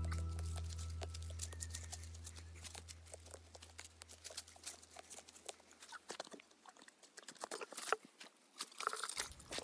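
Irregular light crackles and clicks close to the microphone among garden plants. Under them a low music note fades out over the first six or so seconds.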